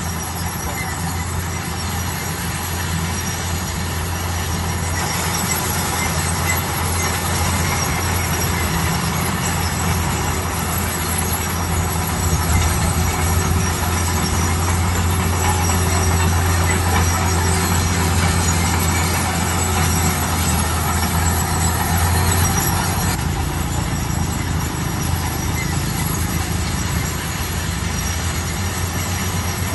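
Bulldozer's diesel engine running under load, with high-pitched squealing from its tracks. It grows louder about five seconds in and eases off again near the end.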